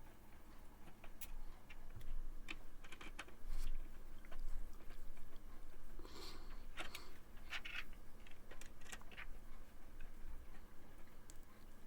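Scattered small clicks, taps and scrapes of hard plastic parts being handled: a dust filter being fitted back onto a 140 mm PC case fan.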